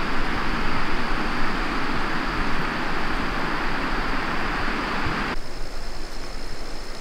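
Steady rushing of flowing river water, which cuts off abruptly about five seconds in. A quieter background with a steady high trill remains.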